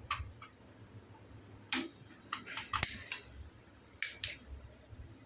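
A pot being set on a gas stove: scattered light clicks and knocks, about a dozen over a few seconds, the sharpest about three seconds in.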